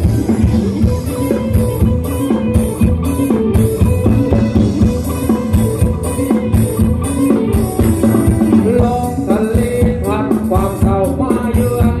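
Live Thai ramwong band music: a drum kit keeping a steady dance beat with guitar, and a singer's voice coming in about three-quarters of the way through.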